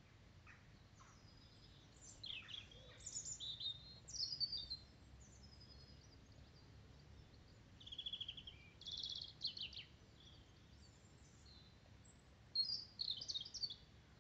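A songbird singing in three short bursts of high chirps and trills, over a low steady rumble of distant road traffic.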